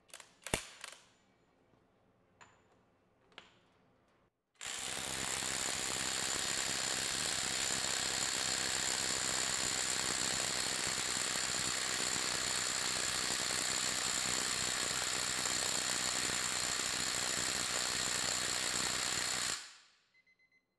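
Kobalt XTR impact driver converted to a half-inch anvil, hammering steadily in reverse against a torque-test fixture for about fifteen seconds before it stops suddenly near the end. A few short clicks and knocks of the tool being handled come in the first few seconds.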